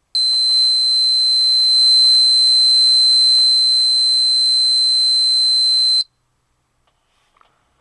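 Electronic buzzer of an electrical airsoft bomb imitation sounding one loud, steady high-pitched tone for about six seconds, then cutting off suddenly.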